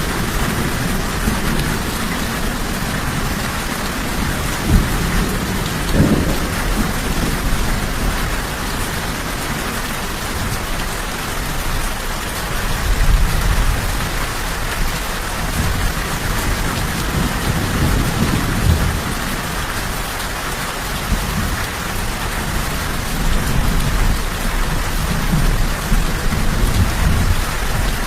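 Steady, even rain, with low rumbles of thunder swelling and fading underneath several times.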